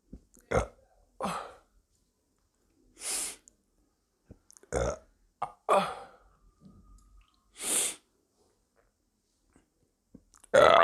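A woman burping again and again: short, separate burps a second or more apart, with breathy exhales between them and the loudest burp near the end. The burps are brought up by drinking fizzy soda.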